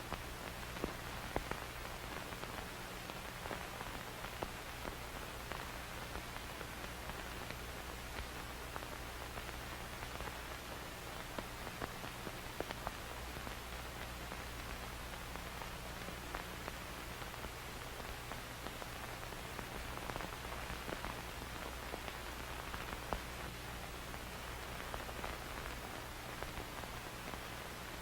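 Film static: a steady hiss with scattered crackles and pops, over a low steady hum.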